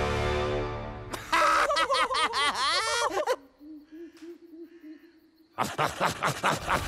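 Music fades out, then a wordless warbling, hooting cry lasts about two seconds. A faint low hum follows, and near the end comes a quick run of sharp clicking noises.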